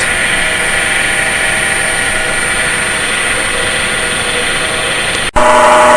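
Grizzly G0733 wood lathe running with a steady rough, gear-like noise and whine from its headstock spindle, which the owner takes for a bad spindle bearing. About five seconds in the sound drops out for an instant and comes back louder, with a stronger steady tone.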